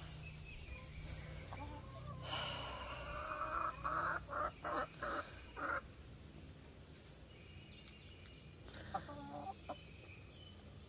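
Hen clucking: a drawn-out call about two seconds in, then a run of about five loud clucks, and a few softer clucks near the end.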